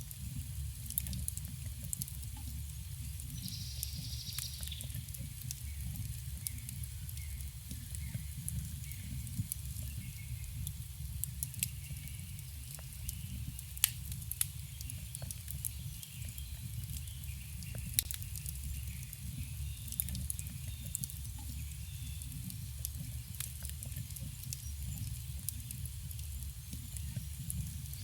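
Campfire burning: a steady low rumble of flame with frequent, irregular sharp crackles and pops from the burning wood, and faint birdsong in the background.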